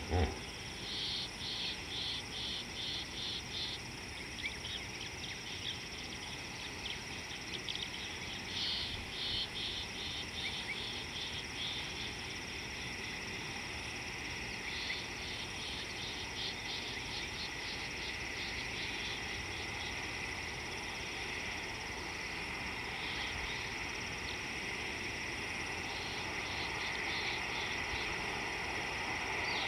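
Insects chirping in bouts of rapid, high-pitched pulses, over a steady high drone of other insects that swells slightly in the second half.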